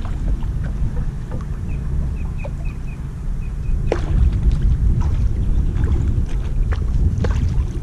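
Wind buffeting the microphone on a kayak on open water, a steady low rumble, with scattered short splashes and knocks and a quick run of short high chirps about two seconds in.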